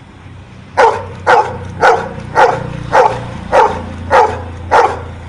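Golden retriever barking a steady, evenly spaced series of eight barks at about two a second, starting about a second in. It is counting out the number ten on command, a trained trick.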